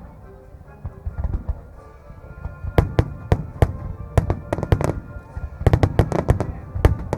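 Aerial firework shells bursting in sharp cracks with low booms. There are only a few in the first couple of seconds, then they come in quick succession and pile into a rapid string near the end, with music playing underneath.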